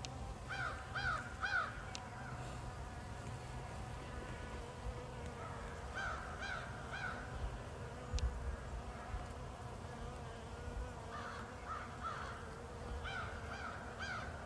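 Honeybees buzzing steadily at a hive. A bird calls in short runs of about three calls, four times.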